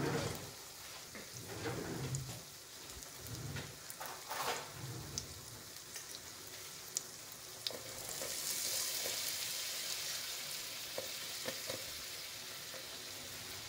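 Butter sizzling in a stainless steel pot, the first step of a roux. The sizzle grows louder from about eight seconds in, and a spoon clicks lightly against the pot a few times as flour is stirred into the melted butter.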